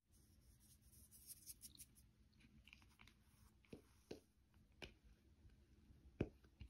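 Faint handling of a plastic tub as risen bread dough is turned out of it onto a silicone baking mat: soft rustling, then a few light taps of the plastic, the sharpest about six seconds in.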